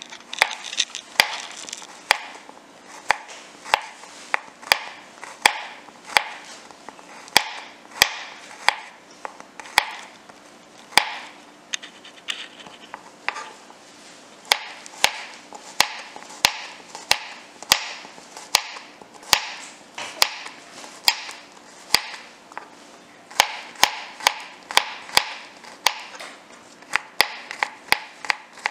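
Kitchen knife slicing garlic cloves on a wooden cutting board: a steady run of sharp knocks of the blade on the board, roughly one to two a second.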